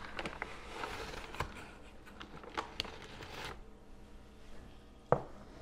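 Faint rustling and light clicks of kitchen handling, with one sharp knock about five seconds in.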